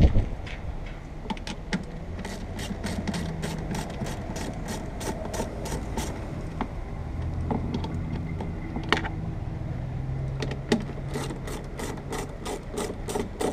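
Hand ratchet wrench clicking in quick runs, several clicks a second, as the nuts holding the windshield wiper arms are turned off by hand. One run starts about two seconds in and another near the end, over a low steady hum.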